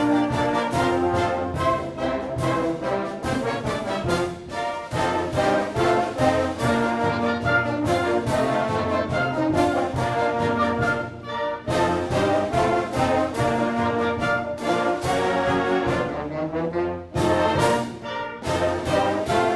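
High school concert band playing, woodwinds and brass together, the phrases broken by short breaths three times.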